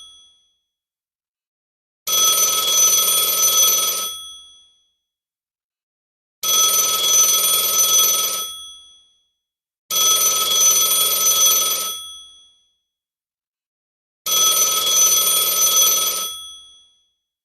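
Telephone ringing: four rings, each about two seconds long, with silent pauses between them.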